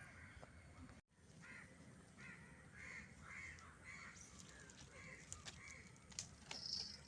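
A crow cawing faintly in a run of about eight evenly spaced calls, roughly two a second, with a few sharp clicks near the end.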